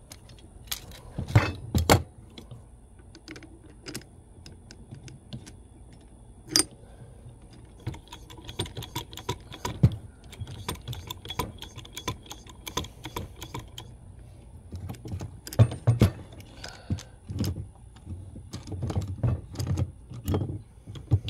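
Irregular metallic clinks, knocks and jangles of metal tools and hardware being handled, with a few sharper strikes standing out.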